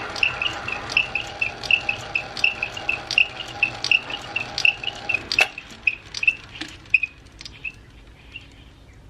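Small metal lathe running with a motor hum and a light tick about three times a second as the chuck turns. About five seconds in there is a click and the hum stops, and the ticking dies away as the chuck coasts to a stop.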